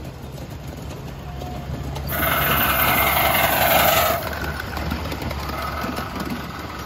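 Miniature steam locomotive running past close by, with a loud burst of steam hiss about two seconds in that lasts about two seconds and stops suddenly, over a steady low rumble.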